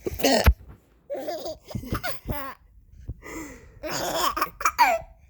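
A woman's sharp hiccup right at the start, then a baby laughing in several short bursts.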